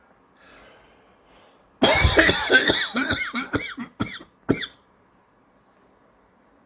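A man coughing hard in a fit of several coughs lasting about three seconds, the last two coughs coming apart.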